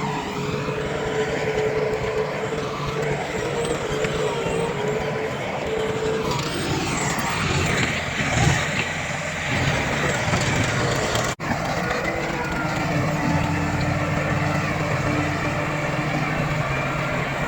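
Heavy diesel machinery running steadily: bulldozer and dump-truck engines at work. The sound breaks off for an instant about two-thirds of the way through.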